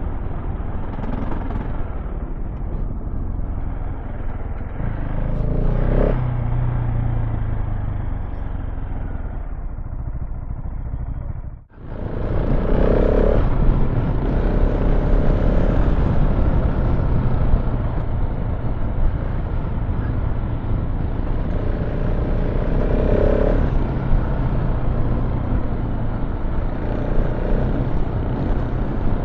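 Single-cylinder KTM 690 Enduro R engine running under way off-road, with riding noise over the top. About twelve seconds in the sound cuts out for an instant and returns brighter, as at an edit.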